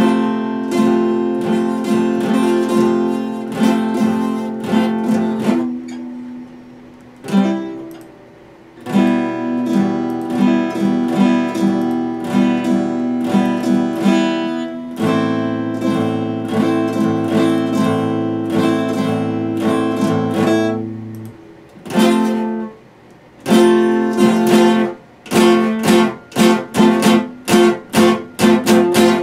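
Epiphone acoustic guitar played solo: picked and strummed chords ringing out, broken by two short pauses, then quick repeated strums near the end.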